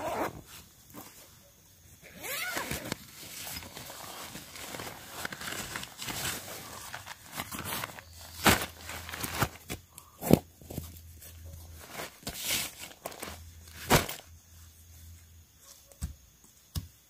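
Nylon fabric rustling and crinkling as a tent is handled and pulled out of its carry bag, with several sharp knocks and clicks from the gear being handled.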